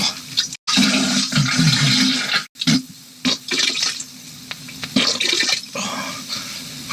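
Toilet flushing: gushing, splashing water, chopped into short pieces with abrupt cuts.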